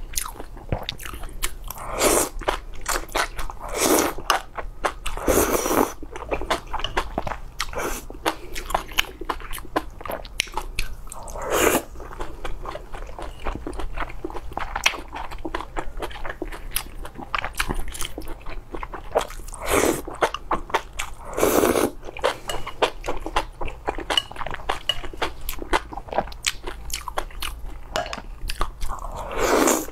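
Close-miked eating of spicy noodle soup: chewing with many wet mouth clicks, broken by loud slurps of noodles every few seconds.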